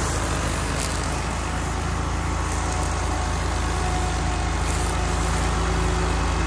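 Gas string trimmer running steadily at working speed, its line cutting through thick grass.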